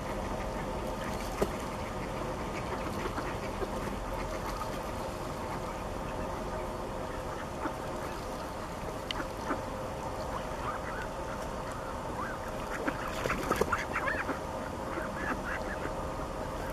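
Mallards quacking: scattered calls, then a quick run of quacks about thirteen seconds in, over a steady background hum.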